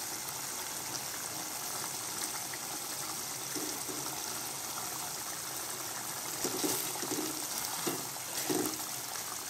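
Chicken curry gravy boiling in a pan on the stove: a steady bubbling hiss, with a few brief louder moments in the second half.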